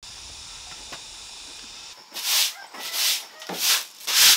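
A steady hiss for about two seconds, then rhythmic rasping strokes, about one and a half per second, each a loud scrape.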